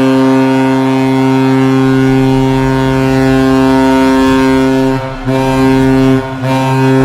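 Ice hockey goal horn blasting: one long, deep, steady blast of about five seconds, then two short blasts of about a second each.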